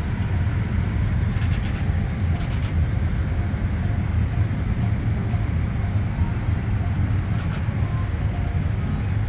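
Steady low rumble of airliner cabin noise aboard a Boeing 787-9, with a few faint clicks.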